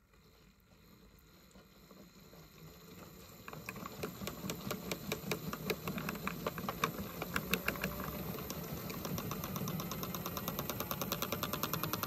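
Toy washing machine speeding up into its spin: the small motor runs while the drum clicks in an even rhythm, the clicks growing faster and louder from a few seconds in.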